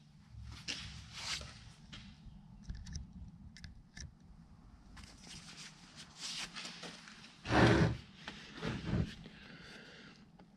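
Parts of a disassembled automotive A/C compressor and a screwdriver being handled on a workbench: scattered light metal scrapes and clicks, with a louder knock just before eight seconds and a smaller one about a second later.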